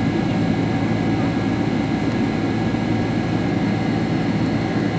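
Boeing 767-300ER jet engines and airflow, heard steady and unbroken from inside the passenger cabin.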